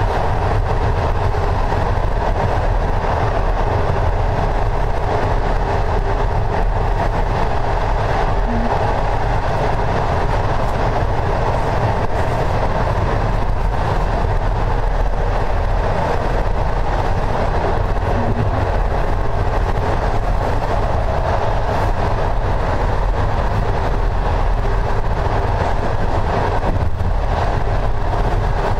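Passenger train carriage running steadily at speed, heard from inside: a constant rumble from the wheels and running gear mixed with the rush of air, holding even throughout.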